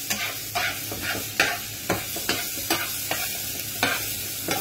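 Chicken hash with egg sizzling in a non-stick frying pan while a slotted spatula stirs and scrapes it around, about two scrapes a second over the steady frying hiss.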